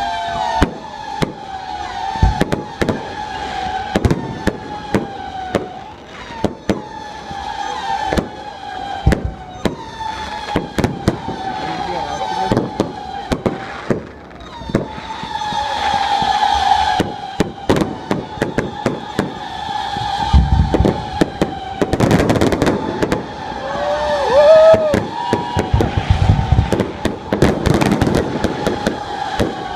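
Fireworks display: a rapid series of sharp bangs and crackles from aerial shells, growing denser and louder in the second half. Behind them a tone that falls in pitch repeats about every second and a half.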